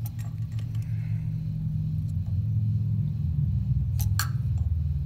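A steady low mechanical rumble of shop equipment running, with two short sharp clicks about four seconds in.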